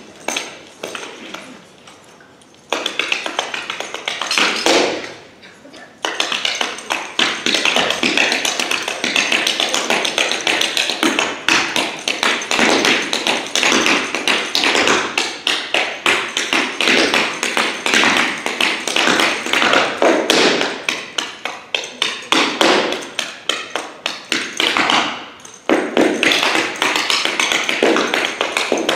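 Clogging shoe taps striking a dance floor, danced a cappella without music: fast, dense rhythmic tapping that comes in loud about three seconds in, breaks off briefly around five to six seconds, then runs on in quick strings of steps.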